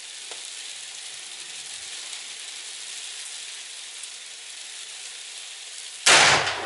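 Steady hiss of freezing rain, then about six seconds in a single shot from a Mossberg Patriot bolt-action rifle in .308 Winchester, sharp and loud, dying away over about half a second.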